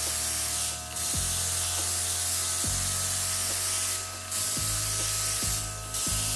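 Handheld airbrush spraying skin tattoo ink through a stencil: a steady hiss that breaks off briefly three times, about a second in, near four seconds and near six seconds.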